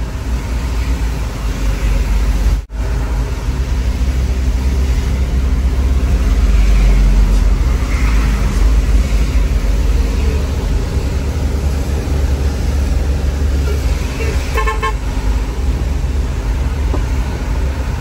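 Truck engine running steadily with road noise inside the cab while driving. Near the end comes a short run of quick horn toots. The sound drops out for an instant about three seconds in.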